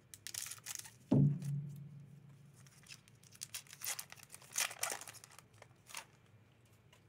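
Foil wrapper of a Masters 25 booster pack being torn open and crinkled, in several short rustling bursts. A dull thump about a second in is the loudest sound.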